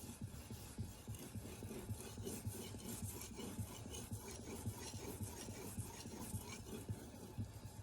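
Damascus knife blade being drawn back and forth across a four-sided diamond-compound strop in quick, repeated rubbing strokes: the final polishing stage of sharpening.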